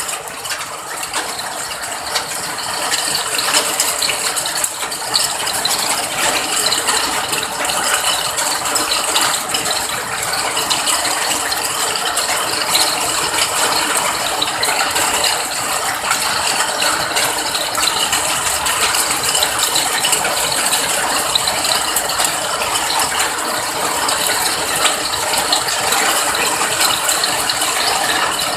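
Steady rain falling, a dense crackle of many drops, a little louder after about three seconds.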